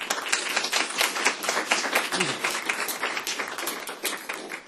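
Small audience applauding: a dense patter of hand claps that starts abruptly and thins out toward the end.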